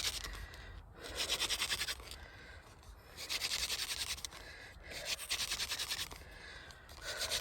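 Hand drill for friction fire: a wooden spindle spun fast between the palms, grinding against the hearth board in scratchy, rasping bursts of about a second each, three times, with short pauses between as the hands go back to the top. The drill is already making a little smoke.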